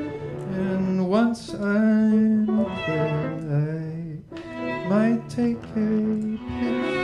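A man singing with slides up into his notes over violin, viola and cello.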